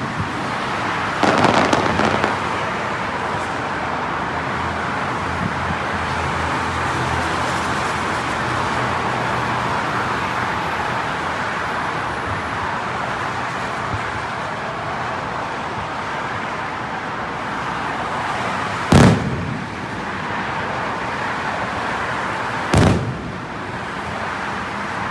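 Aerial fireworks going off: a short cluster of pops about a second in, then two single sharp bangs of shells bursting about four seconds apart near the end, over steady outdoor background noise.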